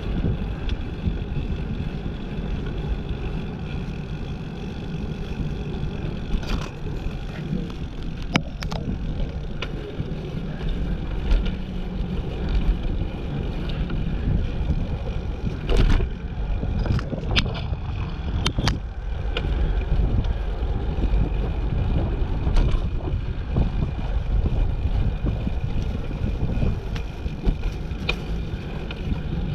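Wind rumbling over the microphone of a camera riding along on a moving bicycle, with a few sharp clicks or rattles from the bike in the middle.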